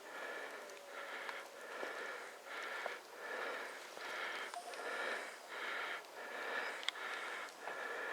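Footsteps crunching through snow at a steady walking pace, about a step every half second, with an occasional sharp click.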